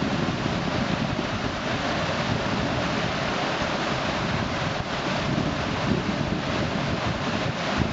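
River rapids rushing steadily: whitewater pouring through a man-made drop and standing wave. Wind buffets the microphone, adding a low rumble.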